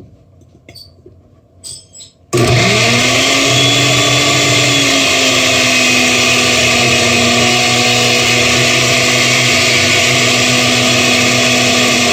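Countertop blender switched on about two seconds in, its motor spinning up with a short rising whine and then running steadily at high speed on a load of chopped red onion with no liquid. It struggles a little with the dry load.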